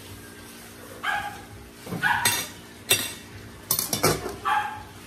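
A dog yipping a few times in short barks, mixed with sharp metallic clinks of an aluminium pot and its lid being handled, about three seconds in.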